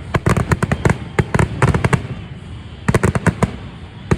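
Fireworks going off in quick runs of sharp bangs and cracks, with a brief lull about halfway through before another volley.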